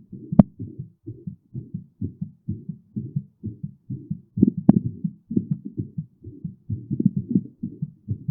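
Human heart sounds recorded close up: a fast, steady run of low lub-dub beats, about two and a half a second, with the heart beating quickly from physical exertion. Two sharp clicks cut through, one just after the start and one about halfway.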